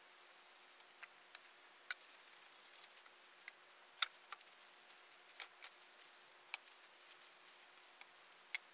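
Quiet hiss with a faint steady hum, broken by about a dozen small, sharp clicks and ticks, the loudest about four seconds in. These are the light knocks and ticks of a hatchet and rag being handled while a finish is wiped onto its wooden handle.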